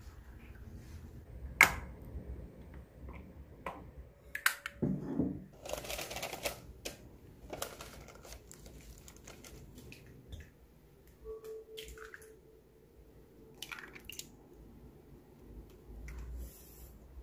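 Kitchen work sounds: scattered clicks, taps and clatters of utensils and dishes, with a brief rustle and, about eleven seconds in, a faint run of short beeps.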